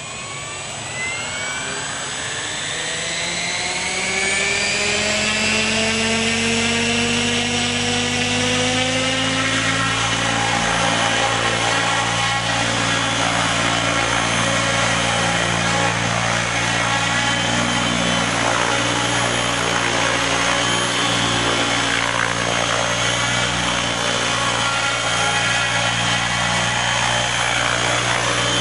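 Align T-REX 800 radio-controlled helicopter spooling up: its rotor and drivetrain whine rises steadily in pitch over about the first ten seconds, then holds steady at head speed.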